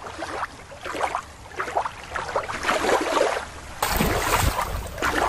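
Sea water lapping and sloshing. About four seconds in, louder splashing starts as a hand swishes a plastic toy gray whale through shallow water.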